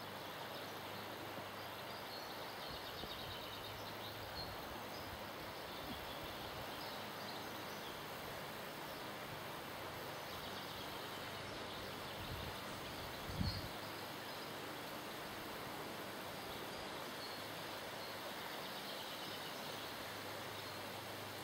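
Steady rush of river water flowing, with faint bird calls now and then. A short low thump about thirteen seconds in.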